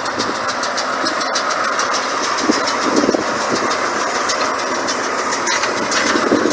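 Tractor engine running steadily while pulling a round baler at work, with a continuous mechanical rattle.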